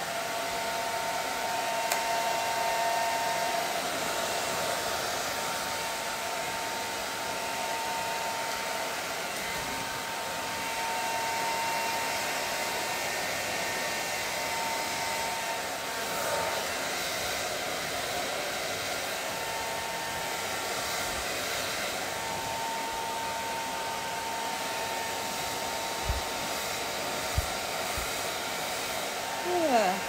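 Handheld hair dryer blowing steadily, a rushing blow with a thin whine, drying freshly washed hair. Two small knocks come near the end.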